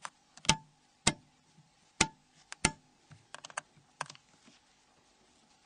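Torque screwdriver with a Torx Plus bit clicking as small screws are driven home into a mobile phone's flip frame: about half a dozen sharp, irregularly spaced clicks in the first four seconds, the sound of the driver's clutch letting go at the set torque.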